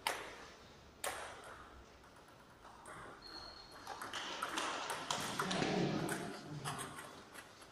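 Table tennis ball clicking off bats and table in a rally: a sharp knock at the start, another about a second later, then a quicker run of hits in the second half, ringing in a large gym hall.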